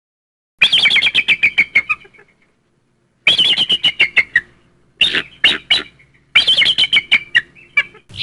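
A bird calling in four bursts of rapid chattering notes, about ten sharp notes a second, with short pauses between the bursts.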